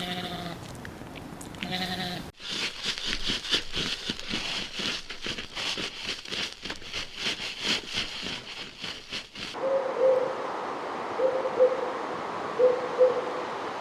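A farm animal bleating at the start, then a run of quick, sharp clicking sounds, about three a second, lasting several seconds. From about ten seconds in, a bird hoots in repeated pairs of low notes.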